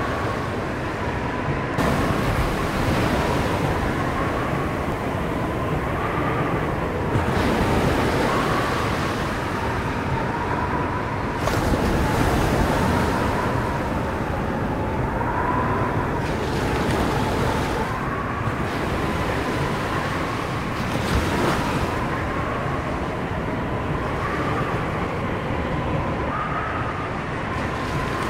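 Storm surf crashing against a harbour breakwater wall, with gale wind rushing over the microphone: a constant churning roar that swells into louder crashes of breaking wave and spray about every four to five seconds. A thin wavering whistle runs under it.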